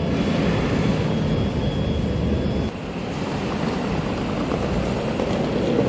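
Steady low rumble of road traffic and engines with a hiss over it, outdoor transport ambience; the texture shifts slightly, with a brief dip, a little under three seconds in.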